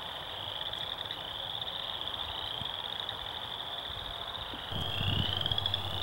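A chorus of chorus frogs calling, really loud: many overlapping rising trills, like fingers run along the teeth of a comb. A low rumble joins near the end.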